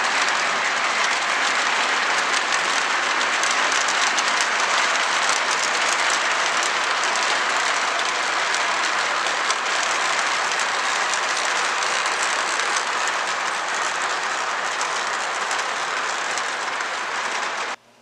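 O-gauge model train cars rolling past on the track: a steady rattling rush with fast clicking of wheels over the rails, cutting off abruptly near the end.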